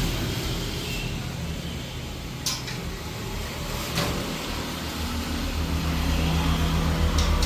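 A motor vehicle engine running close by on the road, its low hum pulsing and growing louder in the second half, with two sharp metallic clicks, the first about two and a half seconds in.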